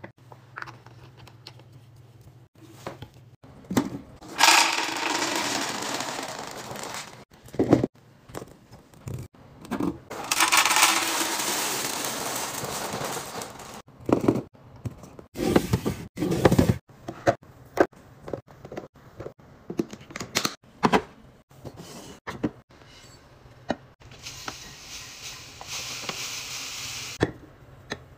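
Dry food such as cereal and a brown powder poured into clear plastic and glass canisters, heard as three long rushing pours. Between the pours come scattered clicks and knocks of containers and lids being handled.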